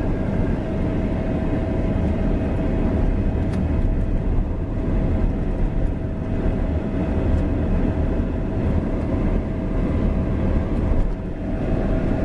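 Steady low rumble of a car heard from inside the cabin, with a thin steady whine over it. The rumble drops abruptly at the very end.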